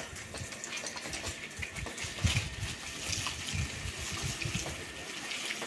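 Garden hose spraying water onto a garden bed, a steady hiss, with a few soft low thumps.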